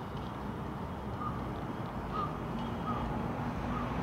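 A crow cawing repeatedly: a series of short caws about a second apart, over a steady rush of road traffic.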